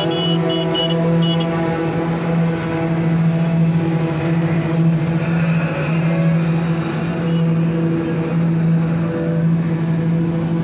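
A PQC slipform concrete paver running with a steady, even drone. A few short high beeps sound in the first second and a half.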